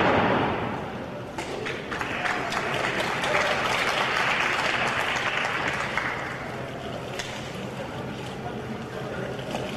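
Wrestling crowd in a hall applauding and cheering, swelling for a few seconds and then easing, with scattered sharp claps or knocks.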